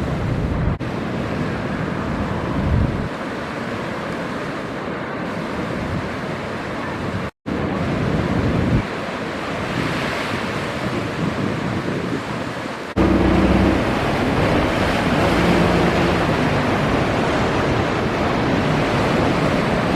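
Breaking surf with wind buffeting the microphone, cut into several shots with a brief dropout partway through. In the last third the sound gets louder and a low, steady boat engine hum runs under the surf.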